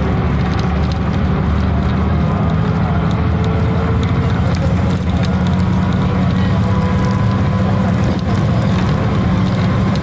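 Steady engine and road noise inside a moving vehicle's cabin: a deep, even rumble with a faint whine that drifts slowly in pitch.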